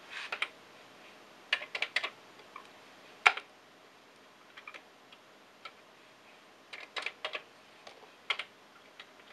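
Key presses on a Commodore 64 keyboard, typed in short irregular bursts of a few keys, with one louder single key press about three seconds in.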